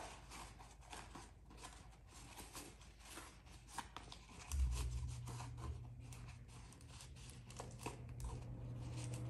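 Paper envelope and disposable face mask rustling and crinkling as they are folded and pushed together by hand. About halfway in comes a soft thump, then a low steady hum that continues.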